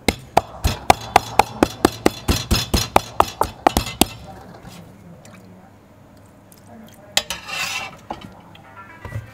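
Wooden pestle pounding garlic in a stainless steel bowl: a quick run of sharp strikes, about four a second, each with a metallic ring from the bowl, lasting about four seconds. About seven seconds in there is a short scrape of the pestle grinding in the bowl.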